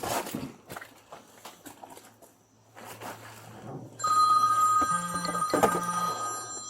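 Phone ringing, starting suddenly about four seconds in as a steady, loud electronic ring, after a few seconds of faint footsteps and rustling.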